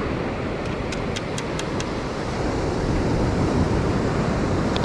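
Steady wind noise on the microphone over the wash of surf, with a short run of faint high ticks about a second in and one more near the end.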